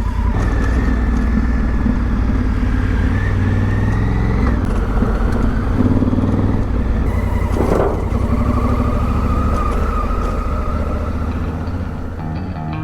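Honda Africa Twin's parallel-twin engine running steadily as the motorcycle is ridden, its note shifting a little.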